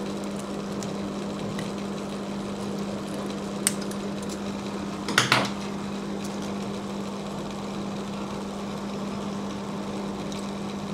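Scissors trimming a thin metal phone shield can: a few light metallic clicks and one short, sharp clatter about five seconds in, over a steady low hum.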